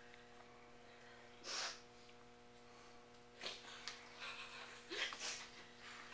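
A few short sniffs and sharp breaths from people moved to tears, about a second and a half, three and a half and five seconds in, over a steady low hum.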